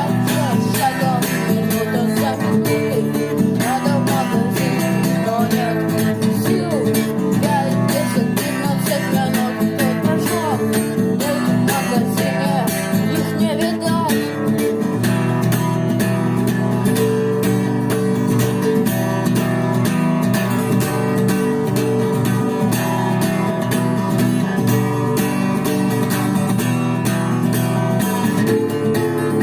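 Instrumental stretch of a guitar-band song: strummed guitar, bass and a drum machine keeping a steady beat, with a lead guitar playing a bending melody over the first half.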